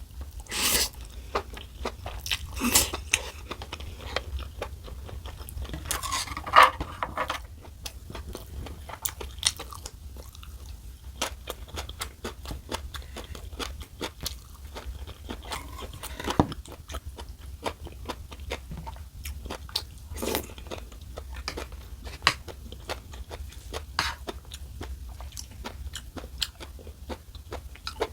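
A person eating into a close microphone: chewing and crunching, with a steady run of small mouth clicks and a few louder strokes scattered through.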